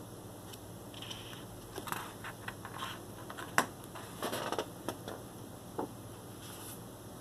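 A large sheet of heavy paper being turned by hand: rustling and crinkling, with a sharp snap about halfway through, a swish just after it and a couple of soft taps as the page settles.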